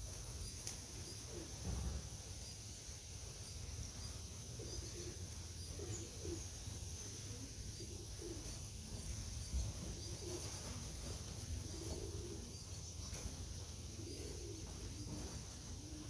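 Racing pigeons cooing over and over in short low calls, over a steady low rumble. Two dull thumps come through, one about two seconds in and one near the middle.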